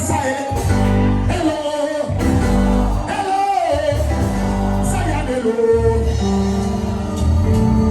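Live gospel music: a voice singing over an instrumental backing with a steady bass line.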